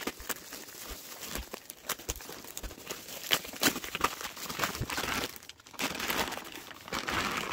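Bubble wrap and a clear plastic bag crinkling and rustling as they are pulled open by hand, in irregular crackles with a brief pause about five and a half seconds in.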